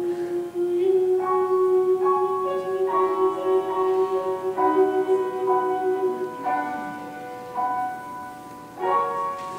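Male singer holding a long final note for about six seconds over piano chords, ending a show tune; the piano plays the closing chords alone after the voice stops.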